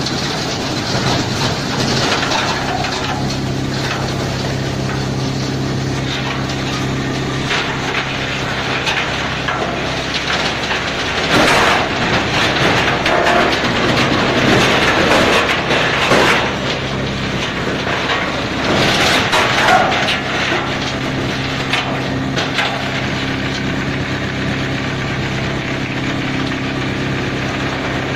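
Tub-type tree root grinder running with a steady machine hum, wood cracking and crunching as roots and stumps are ground into chips. The crunching is loudest and most broken up in the middle stretch.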